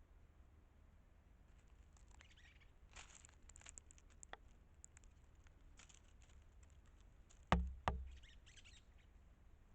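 Faint scattered ticks and light rustling over a low steady hiss, with two sharp knocks close together about three-quarters of the way through.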